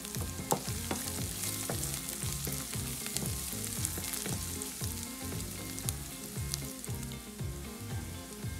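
Onions, garlic, green chilies and cumin seeds sizzling in hot oil in a frying pan while a wooden spatula stirs them, with scattered sharp clicks of the spatula against the pan.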